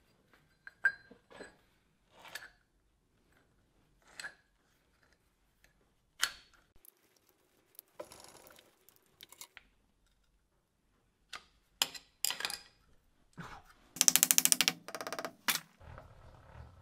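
Steel workholding parts clinking and clunking on a milling machine's cast-iron table as low-profile clamps and a steel plate are set in place. Near the end there is a quick rattling run of clicks, and a low hum comes in just before the end.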